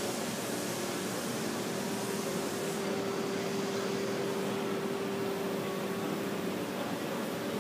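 Steady background hum and hiss of a trade-show hall, with a constant low tone throughout; the high hiss eases slightly about three seconds in. No distinct machine strokes or air blasts stand out.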